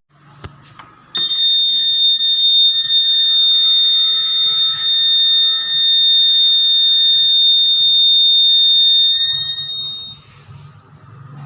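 Door alarm sounding one steady, high-pitched electronic tone that starts about a second in, holds for about eight seconds, then stops.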